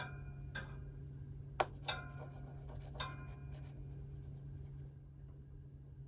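Light metallic clinks and rattles of a wire pet pen as a small kitten shifts on its shelf, a handful of taps over the first few seconds, each with a brief ring. A steady low hum runs underneath.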